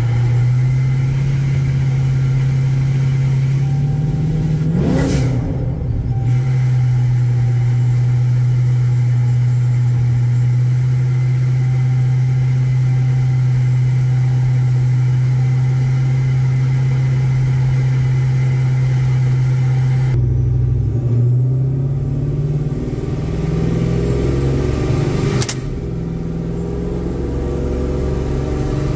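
Torqstorm-supercharged 5.7 Hemi V8 of a Ram 1500 R/T pickup, heard from inside the cab, droning steadily at cruise with a brief break about five seconds in. About twenty seconds in the steady drone drops away and the engine settles to a lower, uneven note, and a sharp click comes near the end.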